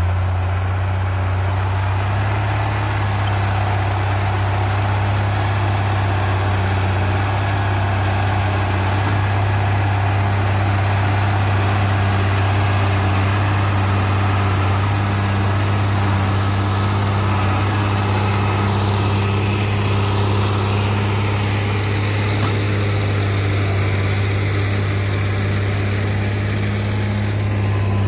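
Ford TW-20 tractor's turbocharged six-cylinder diesel running steadily under load, pulling a five-shank subsoiler through hard, compacted ground.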